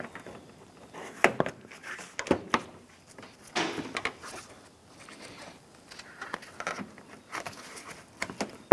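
Hard plastic radiator cover being handled and lined up over the radiator support: a string of sharp plastic knocks and clicks, with a short scrape a few seconds in.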